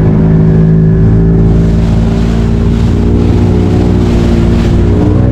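Passenger boat's motor running loud and steady as the boat gets under way, its pitch shifting slightly. A rushing hiss of water and wind builds over it from about a second and a half in.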